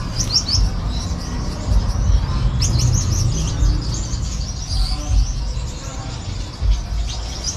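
Finches chirping in repeated clusters of short, high, falling chirps, over a low rumble.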